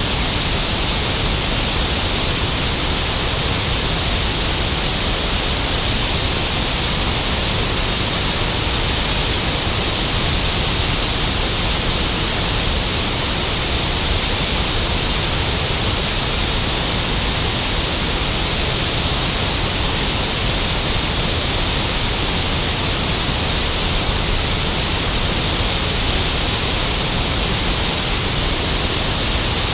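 River water pouring over a concrete dam and crashing into white water and rapids below, a loud, steady rush of falling water.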